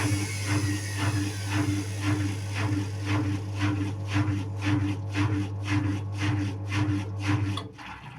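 Indesit WIU81 front-loading washing machine winding down after its spin: the drum turns slowly with a rhythmic rubbing swish about twice a second over a steady motor hum. The last of a falling motor whine fades in the first second, and the hum and swishing stop suddenly shortly before the end.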